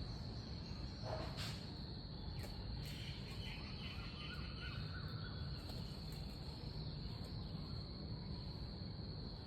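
Crickets or other insects giving a steady, high, unbroken drone over a low outdoor rumble, with a faint click about a second and a half in.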